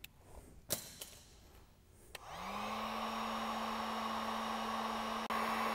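Electric heat gun switched on about two seconds in: its fan motor spins up quickly, then runs steadily with a whir and a rush of air. A few light handling clicks come before it.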